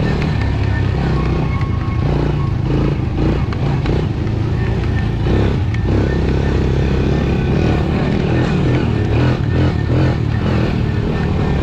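Honda TRX90 youth ATV's small four-stroke single-cylinder engine running at a fairly steady pitch, heard through a helmet-mounted camera, with knocks and rattles from the ride over the track in the middle part.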